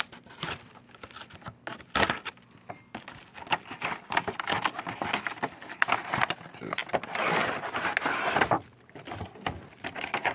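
Plastic blister packaging of a diecast car five-pack being cut open and handled: a quick run of crinkles, clicks and taps, with a longer scraping rustle about three-quarters through.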